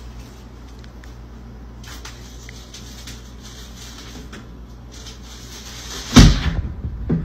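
Faint rustling and light knocks over a low hum, then a loud thud about six seconds in as a cat drops back off a kitchen counter with a bag and hits the wooden cabinet doors, followed by a smaller knock about a second later.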